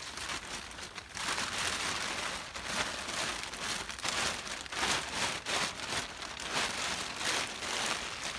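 Plastic tarp rustling and crinkling as it is pulled and stretched over a willow-sapling boat frame, growing louder about a second in.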